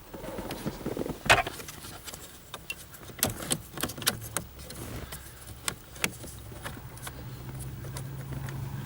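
Car keys jangling with a run of sharp clicks, the loudest about a second in, as a key is worked in the ignition switch. A steady low hum starts about two-thirds of the way through.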